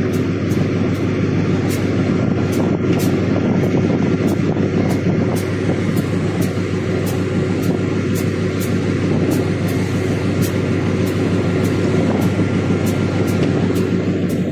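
Steady running noise inside the cab of a Pakistan Railways RGE-20 diesel-electric locomotive under way: a constant engine drone with train running noise.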